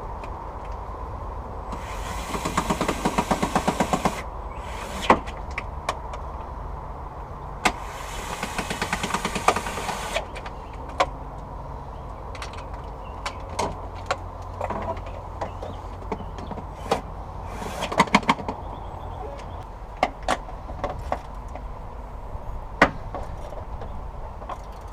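Ratchet wrench clicking rapidly in two runs of a couple of seconds each, running down bolts on the battery carrier, followed by scattered metallic clicks and knocks from the tool and parts.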